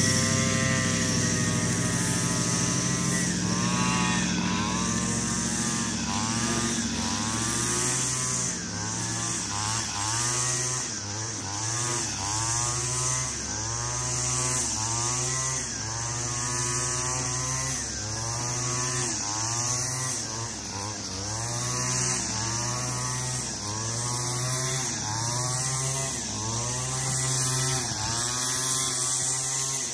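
Gas string trimmer engine running steady at first, then from a few seconds in revving up and down about once a second while it cuts grass.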